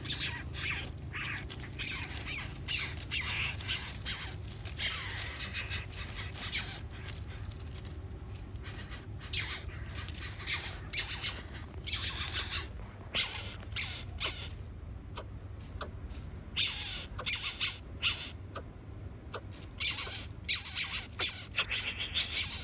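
Birds squawking: harsh, raspy calls in quick irregular bursts, mostly short with a few longer ones.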